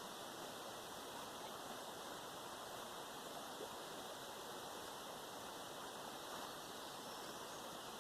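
Steady faint background hiss, even throughout, with no distinct events.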